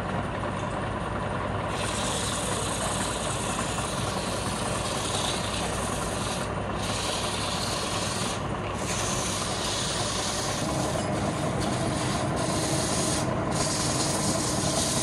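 Sandpaper held by hand against a large wooden disc spinning on a belt-driven electric lathe: a steady rasping hiss over the lathe's hum. The hiss grows stronger about two seconds in and thins out briefly a few times as the paper eases off.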